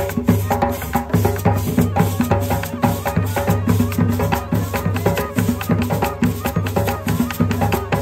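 Upbeat, percussion-led music with a steady beat and a strong bass line.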